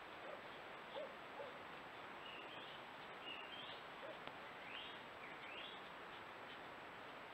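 Steady faint hiss with four short, faint rising calls between about two and six seconds in, and a few softer, lower ones in the first second and a half.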